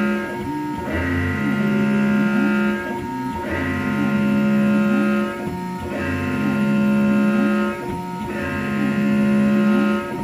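Tormach xsTECH router spindle at 20,000 RPM driving a 3-flute end mill through brown Delrin AF on an adaptive toolpath. It makes a high, many-toned cutting whine that swells as the cutter engages the material and eases off again about every two and a half seconds, in an even rhythm.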